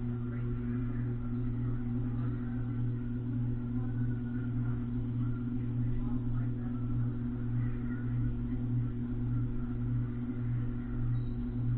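Ceiling fan running with a steady low hum that pulses gently, as picked up by a camera riding on the fan.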